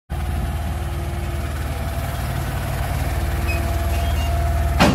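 A heavy delivery truck with a truck-mounted crane, its engine running steadily with a thin steady whine over it. Near the end there is one short, sharp burst of noise.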